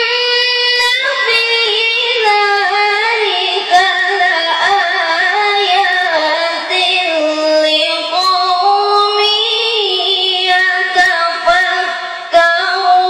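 A woman's voice reciting the Quran in a melodic, sung style into a microphone: long held notes that bend and waver in pitch, in phrases broken by short pauses for breath.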